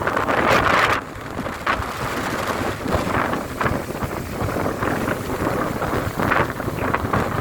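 Strong wind buffeting the microphone in gusts, loudest in the first second and then dropping suddenly to a lower, uneven rumble.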